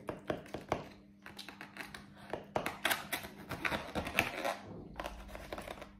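Knife and fork clicking and scraping against a disposable aluminium foil tray while cutting a portion of baked pasta, a rapid irregular run of small metallic clicks and scrapes.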